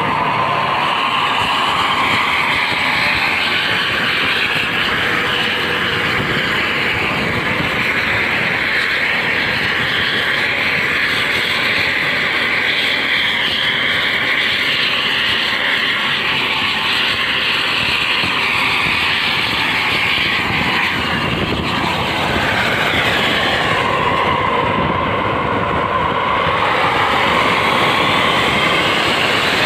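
Steady roar of vehicles on the move: engine, tyre and wind noise.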